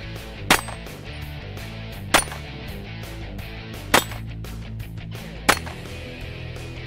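Four pistol shots fired one at a time, about a second and a half apart, over background music.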